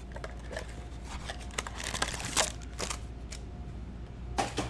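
Cardboard Panini Prizm blaster box being opened by hand and its wrapped card packs pulled out and set down: scattered rustles, taps and crinkles, with a brief swish about two seconds in and the loudest handling near the end.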